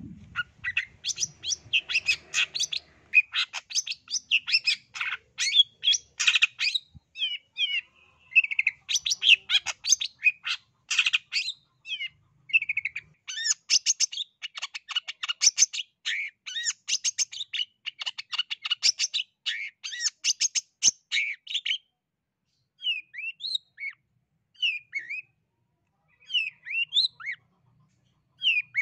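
Long-tailed shrike (cendet) singing in full voice ('gacor'): a fast, dense, chattering run of sharp high notes. About three-quarters of the way through it thins to a few scattered short calls.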